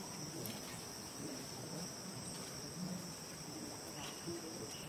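Steady, high-pitched drone of a chorus of insects.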